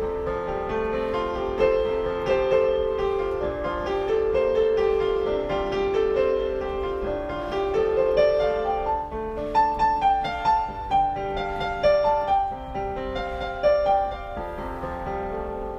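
Solo piano music: a melody over held chords, its notes sharper and louder between about nine and fourteen seconds in.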